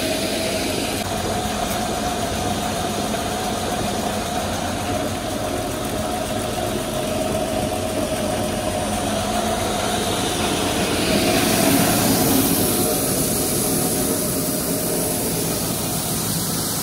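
A farm vehicle's engine running steadily with a constant tone in its sound. About eleven seconds in it grows a little louder.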